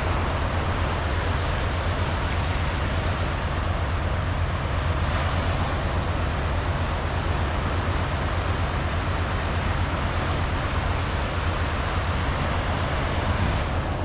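Small waves washing up over a flat sandy beach: a steady rush of surf with a constant low rumble underneath.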